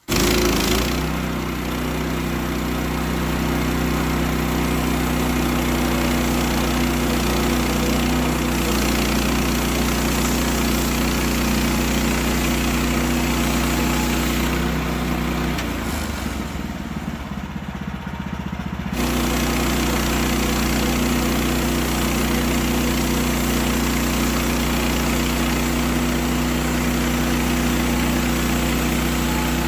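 Sawmill engine running steadily, its tone changing for a few seconds past the middle before settling back.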